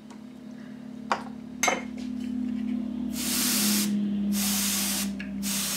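Can of compressed air sprayed through its thin straw nozzle in three short hissing bursts in the second half, blowing wet alcohol ink across the paper. Two light clicks come before it, over a steady low hum.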